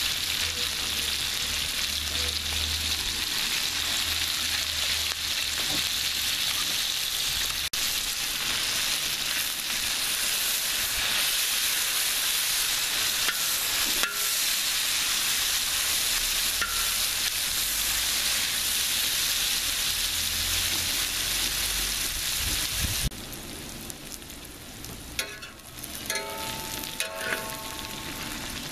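Diced vegetables and meat sizzling in hot oil on a steel plow-disc pan (disco de arado), a steady frying hiss that quietens about four-fifths of the way through. After that, a metal spatula scrapes and clicks against the steel as the food is stirred.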